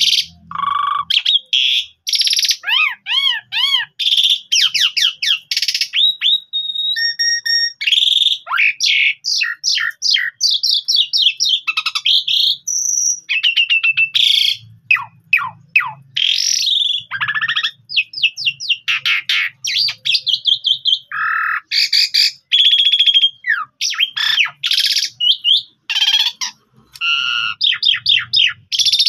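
Javan pied starling (jalak suren) singing a long, unbroken song in full voice: clear whistles, quick rising-and-falling trills, fast rattling note runs and harsh chattering notes, one after another with hardly a pause.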